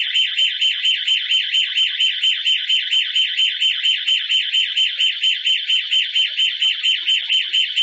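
Security alarm siren sounding: a loud, high electronic tone pulsing evenly about four to five times a second, the sign of a triggered intrusion alarm.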